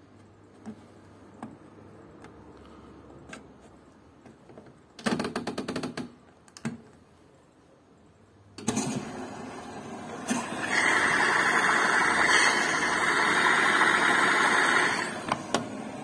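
Zanussi front-loading washing machine being started: the programme dial ratchets through a quick run of clicks, then a few seconds later the machine starts and a steady rush of incoming water sets in, swelling about two seconds later and easing back near the end.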